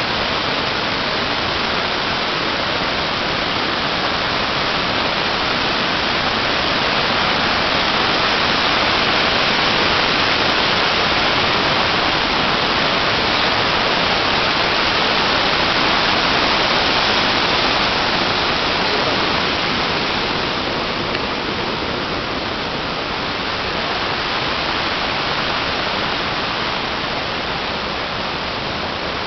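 Brown floodwater rushing out below a dam's sluice gates: a steady, loud wash of churning water that eases slightly about two-thirds of the way in.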